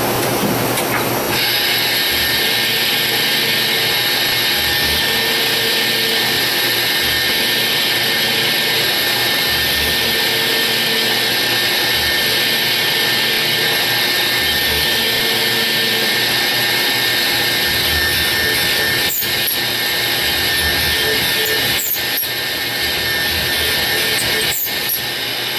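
Citizen-Miyano BNX-51MSY CNC turret lathe machining a bar part, spindles and live turret tools cutting at once. A dense rushing noise comes in about a second in under a steady whine, with a few sharp clicks near the end.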